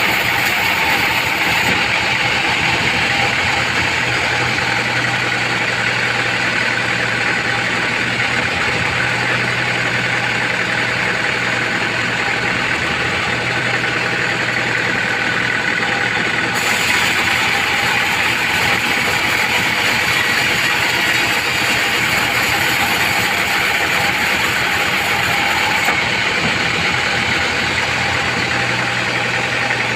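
Vertical band sawmill running, its band blade cutting through trembesi (rain tree) hardwood: a steady machine whine over the hiss of the cut.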